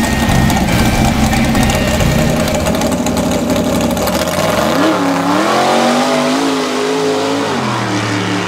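Pro modified mud truck running steadily, then revving up about four and a half seconds in as it launches into the mud pit, its pitch rising and wavering before it falls back near the end.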